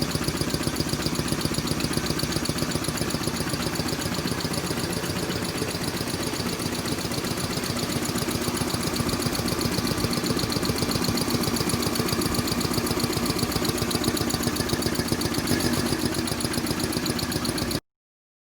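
Freshly rebuilt Kellogg American belt-driven piston air compressor and its electric motor running steadily with a rapid, even pulsing beat, running perfectly. The sound cuts off suddenly near the end.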